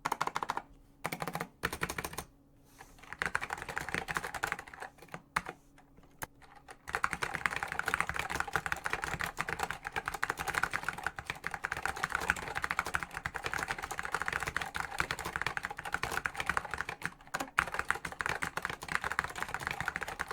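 Typing on a mechanical keyboard with salmon Alps switches. A few scattered keystrokes come first, then about seven seconds in it turns into fast, continuous typing, with one brief pause near the end.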